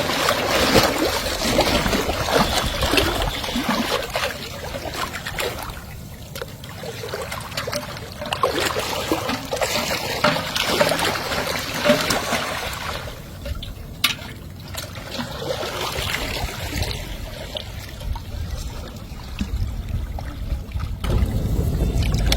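River water splashing and trickling in uneven bursts, louder and softer by turns. A low rumble comes in near the end.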